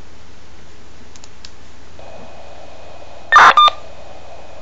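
A Motorola MDC1200 identifier burst, a short buzzy data chirp of about half a second, coming over a scanner's speaker when a portable two-way radio's mic is keyed. A faint steady tone and the hiss of the open channel come up about halfway in, just before it.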